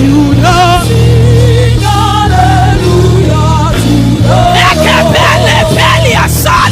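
Live gospel worship music: drawn-out sung phrases with a wavering vibrato over held keyboard and bass chords, the singing growing fuller about four and a half seconds in.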